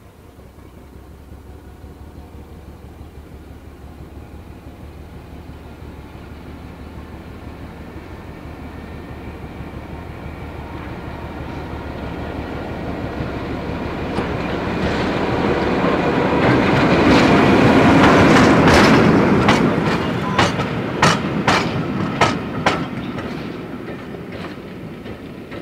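Diesel shunter hauling brake vans approaches and passes, its engine drone growing steadily louder to a peak about three quarters of the way through. Then comes a quick run of sharp clicks as the wheels cross a rail joint, and the sound fades as it moves away.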